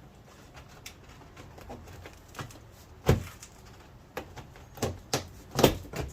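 Knocks and plastic clicks from hands working on a car's rear door panel and handle: one sharp knock about three seconds in, then a quick run of four or five clicks and knocks near the end.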